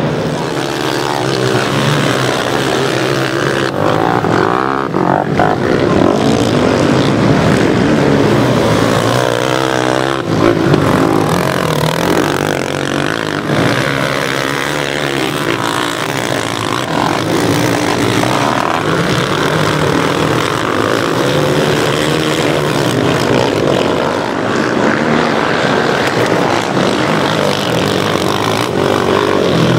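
Several racing quad bikes (sport ATVs) running hard over a dirt track, engines revving up and down with throttle and gear changes, one engine's pitch sweeping up and down near the start and again about ten seconds in.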